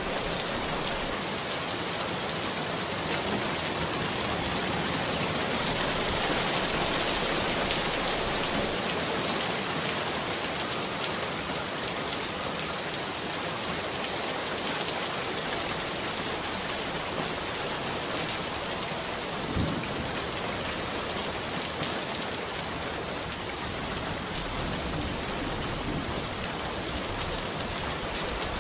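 Steady rain, a dense even hiss, with one short low thump about twenty seconds in.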